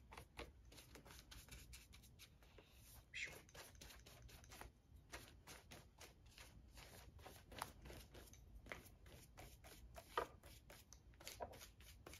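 Faint, quick strokes of a paintbrush spreading acrylic paint across notebook paper, a few soft scrapes a second.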